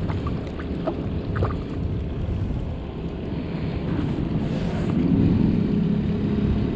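Wind and water noise on open water, with a few light knocks early on and a low steady motor hum that grows louder over the last couple of seconds.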